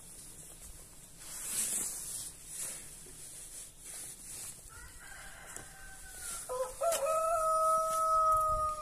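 A rooster crowing, starting about five seconds in: a higher opening phrase, then a rise into one long held note that is the loudest sound and stops near the end. Before it, faint rubbing of a cloth wiping frosted car window glass.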